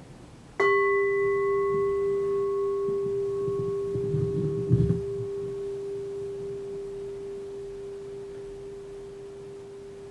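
A Buddhist bowl bell struck once about half a second in, ringing on with a steady low tone and a few fainter higher overtones that die away first, the whole ring fading slowly. A soft rustle and thump about four to five seconds in.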